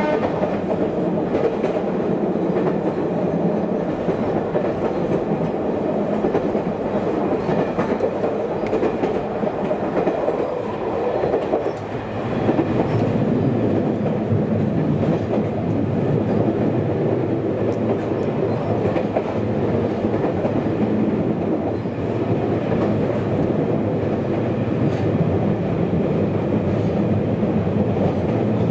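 Running noise heard from inside a moving JR Kyushu electric train: a steady rumble of wheels on rail, briefly quieter about twelve seconds in.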